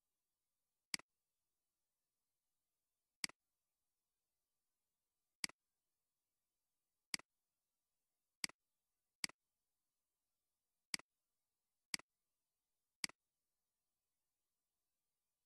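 Computer mouse clicking: nine single sharp clicks at irregular intervals, one to two seconds apart, with two closer pairs about halfway through.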